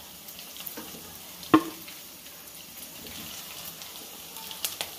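Chirar pitha (flattened-rice fritters) sizzling as they deep-fry in oil while a steel spoon lifts one out to drain. A sharp clink of the spoon against the pan about a second and a half in, and a few lighter clicks near the end.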